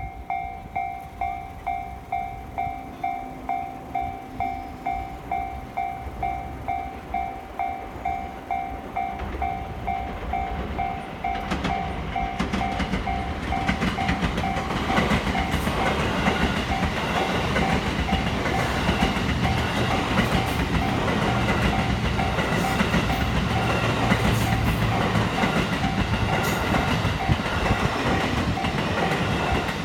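Japanese level-crossing warning bell ringing a steady, evenly repeating electronic ding. About 12 seconds in, a train starts passing over the crossing, and its wheel rumble and clickety-clack on the rails grow louder over the bell.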